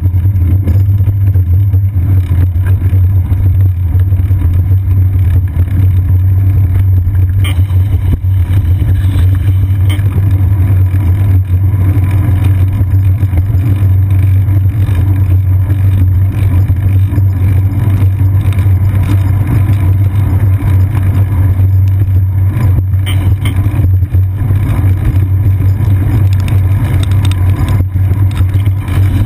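Steady low rumble of road vibration and wind, picked up by a GoPro Hero 2 clamped to a bicycle's seat post as the bike rolls over wet pavement, with a couple of brief knocks from bumps.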